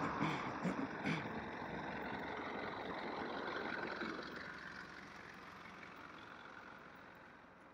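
A parked single-deck shuttle bus idling, a steady engine hum that gradually fades over the last few seconds, with a few light knocks in the first second.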